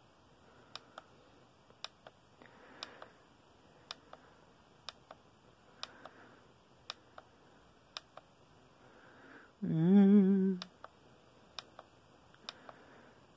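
Button on an LED face mask clicking about once a second, sometimes twice in quick succession, as the displayed faces are cycled. About ten seconds in, a short voice-like hum with a wavering pitch, lasting about a second, is the loudest sound.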